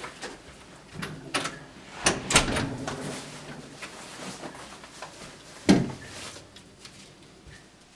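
An interior door swung shut with a loud clunk about two seconds in. Then a jacket rustles as it is pulled off a metal over-the-door coat hook rack, with a sharp knock just before the six-second mark.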